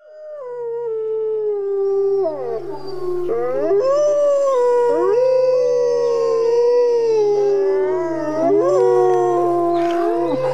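A pack of wolves howling together, several long overlapping howls rising and falling in pitch, fading in over the first second.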